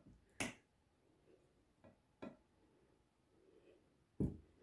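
Sharp light clicks of oiled raw potato slices being set down in a glass baking dish. The three clearest come about two seconds apart, with a couple of fainter taps between them.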